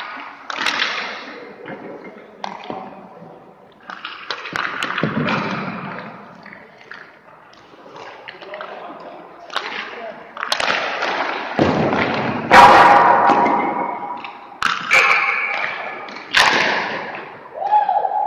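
Hockey goaltending drill: repeated sharp thuds and cracks of pucks being shot and stopped, mixed with scraping rushes of skates on ice.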